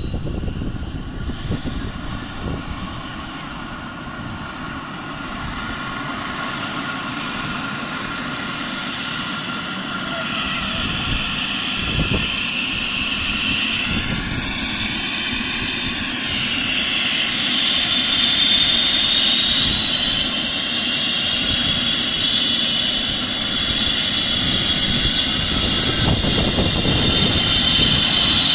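Air ambulance helicopter's turbine engines starting up: a whine climbing steadily in pitch over the first several seconds, then a second, stronger whine joining about ten to seventeen seconds in as the sound grows louder.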